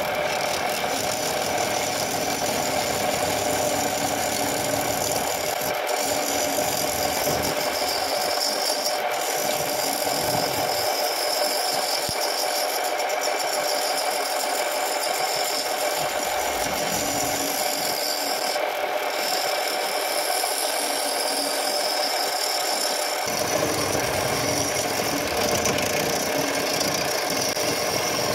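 Wood lathe running steadily while a chisel cuts into the spinning guava root.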